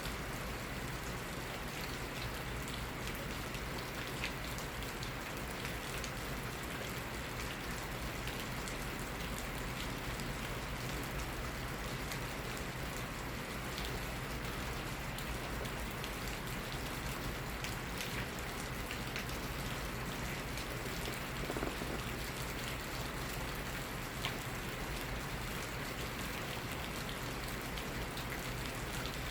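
Steady rain falling on hard surfaces, with individual drops heard as many small, irregular ticks over an even hiss.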